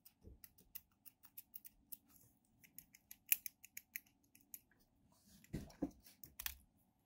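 A steel dimple rake scraping and clicking in the keyway of a brass dimple padlock as it is raked, in quick irregular ticks. A few duller knocks near the end.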